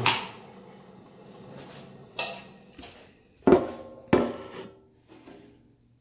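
A few sharp metallic clinks and knocks from a metal bushing and tools being handled and set down: one about two seconds in, then two louder ones about three and a half and four seconds in, each ringing briefly, with fainter small clicks.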